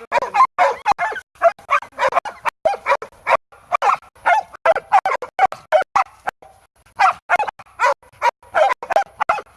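Hog-hunting bay dogs barking rapidly and steadily at a bayed wild hog, several barks a second, with a brief lull a little past the middle.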